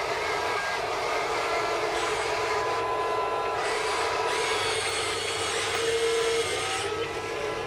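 Electric motors and gearboxes of an RC excavator and RC wheel loader whining as they are driven. Several whining tones start, stop and shift in pitch as different functions are worked, over a constant lower hum.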